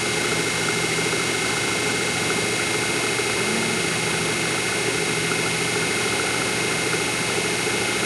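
Metal lathe running steadily with its spindle turning at about 816 rpm: an even machine drone with a constant high-pitched whine over it.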